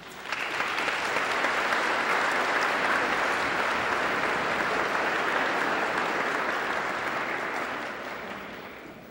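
An audience applauding: the clapping starts at once, holds steady, then dies away over the last couple of seconds.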